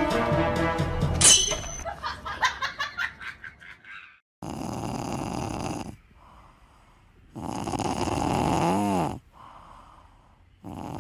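Music with a low horn-like tone, ending in a run of fading strikes; then, after a sudden cut about four seconds in, a sleeping cat snoring: three long, noisy breaths about three seconds apart.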